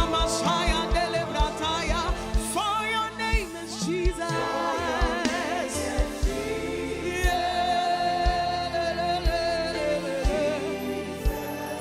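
Live gospel worship music: voices singing with vibrato over a band's sustained accompaniment, with a drum beat thumping underneath.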